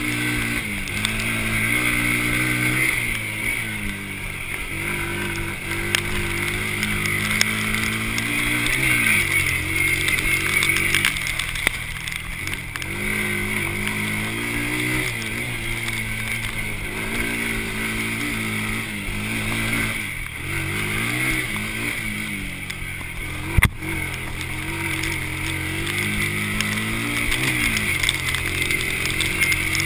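Honda TRX90 quad's small single-cylinder four-stroke engine under riding load, revving up and easing off over and over as the throttle is worked. A single sharp knock stands out about two-thirds of the way through.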